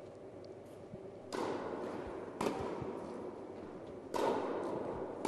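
Tennis ball struck by rackets during a rally in an echoing indoor hall: three sharp hits, about a second and a half in, near halfway and a little after four seconds, each followed by a long reverberant tail, with a few soft low thuds in between.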